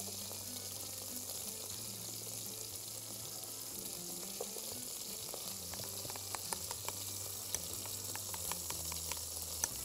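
Chicken thighs frying in a pan with a steady sizzle. In the second half come light, scattered clicks of a metal spoon against a glass bowl and a blender cup.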